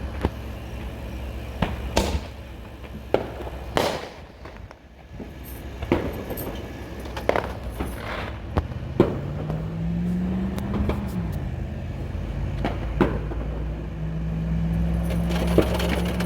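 Fireworks going off: about a dozen sharp cracks and bangs at irregular intervals. Underneath is a steady low rumble, with a droning hum that rises and falls in pitch midway and holds steady near the end.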